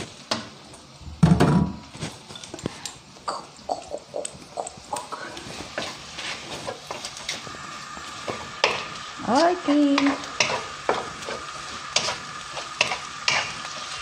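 Ground beef stir-frying in a wok: a spatula scrapes and taps against the pan over a light sizzle. A dull thump about a second in, and a brief voice sound a little after the middle.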